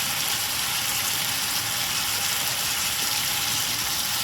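Chicken pieces with sliced onion, green pepper and tomato sizzling steadily in a frying pan.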